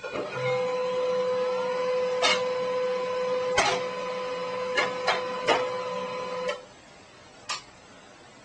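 Printer running: a steady motor whine with several sharp clicks of its mechanism. It stops about six and a half seconds in, followed by one more click.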